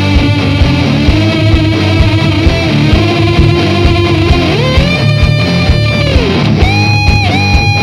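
Background rock music: distorted electric guitar playing held lead notes over a steady drum beat, with one note sliding up about halfway through.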